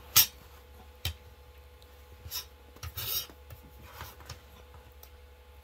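Plastic office-chair armrest being handled and rubbed: a sharp click just after the start, a knock about a second in, then a few short scraping rubs between about two and four and a half seconds.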